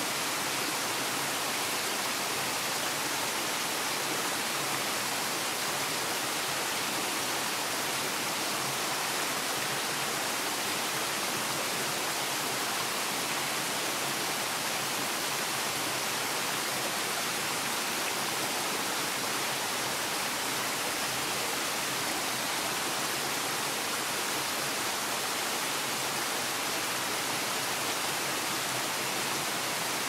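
Steady rushing and splashing of a small waterfall pouring over rocks into a stream pool.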